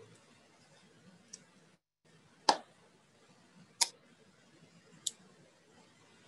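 A few sharp knocks and clicks, roughly a second apart, the first the loudest, as masking tape and wooden boards are handled on a table.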